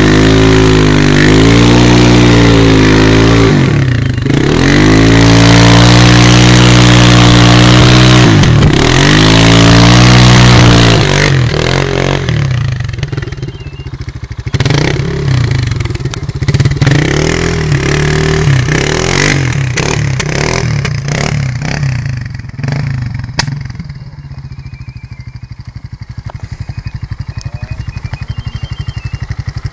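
Dirt bike engine revving hard, its pitch swinging up and down as the throttle is worked, for about the first eleven seconds. The engine then drops to a quieter, lower level with a few knocks, and near the end it runs softly with an even pulse.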